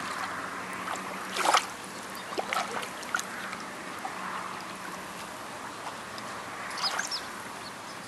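Calm shallow seawater stirred by a child's hands at the water's edge: a soft, steady wash of water with a brief splash about a second and a half in. A faint steady low hum runs underneath.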